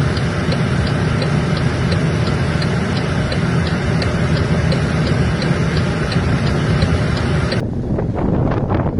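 Motor vehicle driving: steady engine and road noise with a fast, even ticking over it. About three-quarters of the way through it cuts to a duller noise.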